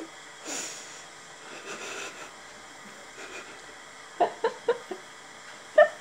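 A young girl's voice: a few short, high vocal sounds about four seconds in and one more near the end, over a faint steady hiss.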